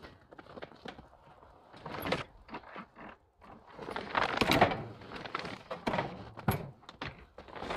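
Nest box lid of corrugated sheet metal being handled and shut on a wooden chicken coop. Scattered knocks and clicks, with a louder stretch of rustling and scraping about four to five seconds in and a sharp knock a little later.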